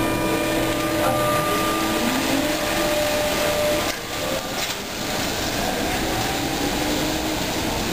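Renault ER100 trolleybus pulling away on its electric traction motor, a steady whine whose pitch rises as it gathers speed, over street noise.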